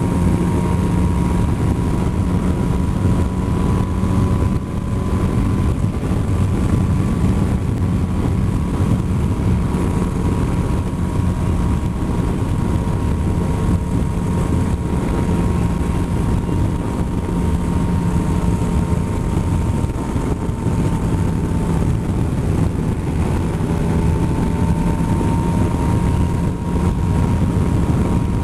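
Motorcycle engine running at a steady cruise, its hum drifting only slightly in pitch, under constant wind rush on the bike-mounted microphone.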